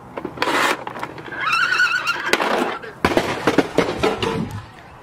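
See 'n Say talking toy playing its recorded horse whinny, a wavering high call about a second and a half in, as the plastic toy is shoved across the roof tiles. The whinny is followed by a couple of seconds of clicks and clatter.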